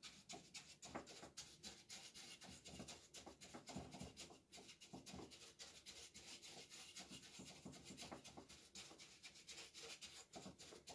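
Faint, quick repeated scratching of a paintbrush's bristles scrubbing dry powder dust off the back of a coffee roaster's cooling fans.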